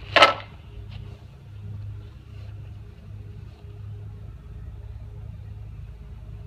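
A brief loud rustle of handling a moment in, as a small plastic parts bag goes into the cardboard box, then a steady low mechanical hum in the background.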